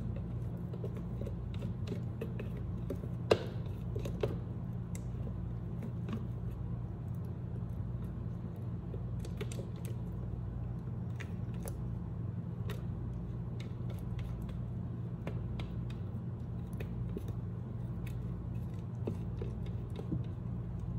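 Spatula scraping and tapping inside a plastic food processor bowl as thick mashed potato is scraped out into a pot: scattered small clicks, with one sharp knock about three seconds in, over a steady low hum.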